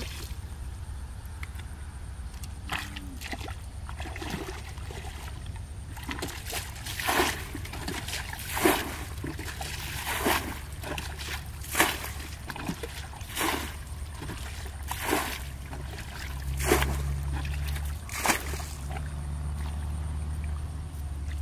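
Water being bailed out of a muddy pool with a plastic bucket: a sloshing scoop and a splash of thrown water about every second and a half, over a steady low rumble.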